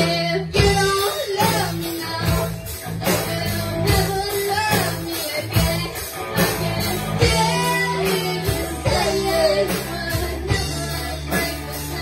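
Live rock band playing: electric guitars over a bass line and a drum kit keeping a steady beat.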